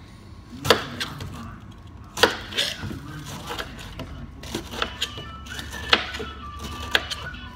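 A large kitchen knife chopping through a whole pineapple onto a plastic cutting board: about six sharp chops at uneven intervals as the top and skin are cut away.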